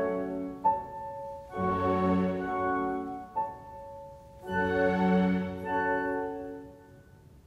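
Slow instrumental background music of sustained, organ-like chords that swell and die away in three waves, fading out near the end.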